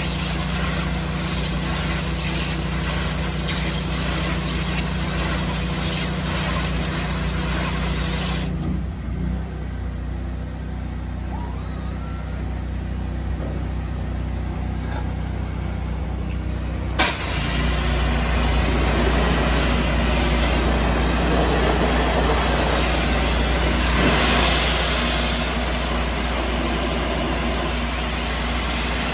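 Engine of a trailer-mounted hot-water pressure washer running steadily under a dense hiss of high-pressure water spray. The spray stops about eight seconds in, leaving only the engine hum. Then, after a sharp click at about seventeen seconds, the spray comes back louder as the hand wand blasts the bins.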